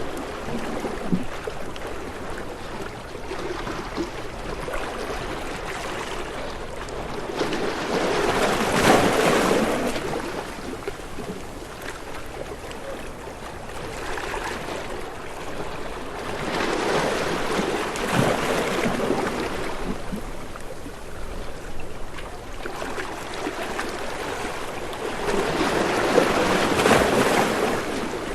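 Ocean waves washing in, three slow swells about eight to nine seconds apart, each rising to a rush and then fading.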